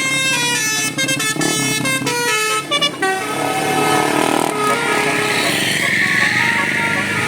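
A bus's Basuri telolet horn playing a quick tune of shifting horn notes. About halfway through, a rushing noise rises behind the notes, which carry on more quietly.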